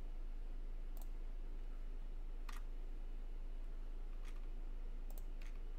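Steady low hum with a few faint, widely spaced computer mouse clicks.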